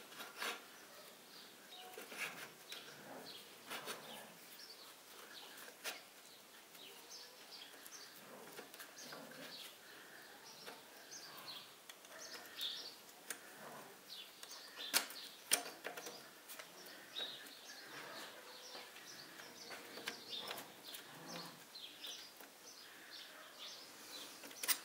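Faint metal clicks and taps of hand-work on a shift fork and its rail inside a U-445 tractor's gearbox, as a pin is fitted into the fork, with two sharper clicks about halfway through. Birds chirp faintly in the background.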